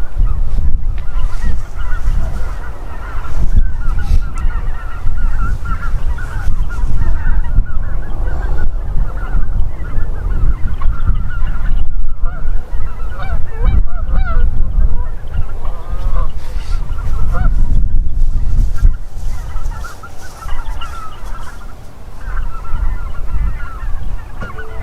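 A flock of geese honking in flight, many overlapping calls throughout, over a loud, uneven low rumble.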